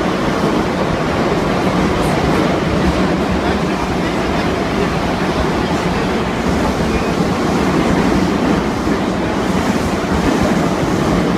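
Steady rumble and rush of a moving metro train, heard from inside the carriage.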